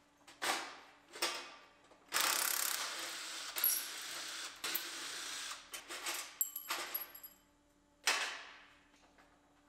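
Plastic filler piece being worked loose and pulled out of a pickup's front bumper, its clips already out: two knocks, a few seconds of continuous scraping and rattling of plastic, more clatter, then a sharp knock about eight seconds in that dies away.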